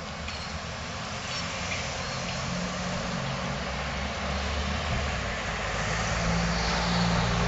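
Street traffic: motor vehicles running and passing, with an engine's low hum growing louder toward the end over a steady hiss of road noise.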